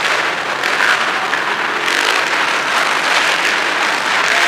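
Racing quad (ATV) engines running around an indoor dirt track, heard as a loud, steady, echoing din.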